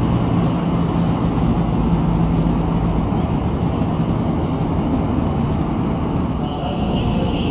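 Electric train at the station making a steady low rumble, with a steady hum that fades about three seconds in.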